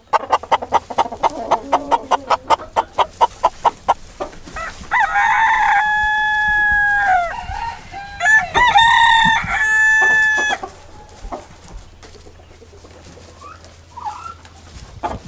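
Chickens clucking in a rapid run of about five clucks a second, then a rooster crowing twice, each crow lasting about two and a half seconds, followed by quieter scattered clucking.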